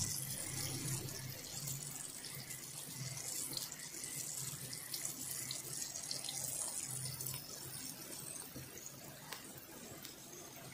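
Electrolysis bath fizzing steadily as gas bubbles stream off a rusty steel putty knife under about 2 A of current, with scattered small bubble ticks. A low hum runs underneath.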